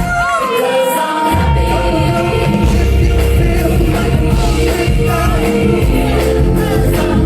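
A live pop band and lead singer performing, recorded on a phone in a concert hall. Near the start the bass and drums drop out for about a second while a voice slides up into a long held note; then the full band comes back in under the singing.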